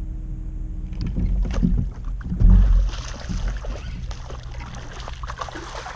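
A hooked bass thrashing and splashing at the surface beside the reeds as it is reeled in, with irregular knocks and a heavy thump about two and a half seconds in. A steady low hum cuts out about a second in.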